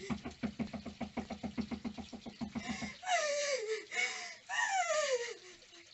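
Rapid knocking on a front door, about eight knocks a second for roughly three seconds. Then a woman's distressed voice in long cries that fall steeply in pitch.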